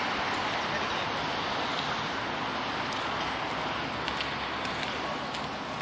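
Steady rushing outdoor background noise that eases slightly, with a few faint ticks about halfway through.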